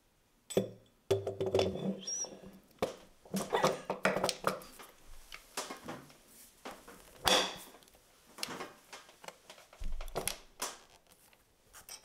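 Irregular metal clunks, clicks and scrapes of a stainless-steel end closure being fitted and secured into the opening of a high-pressure test chamber.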